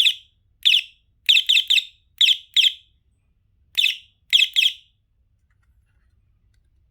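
Electronic horn of a bicycle torch-light and phone-holder unit, its honk button pressed repeatedly: about ten short, high chirping beeps in quick clusters, stopping about five seconds in.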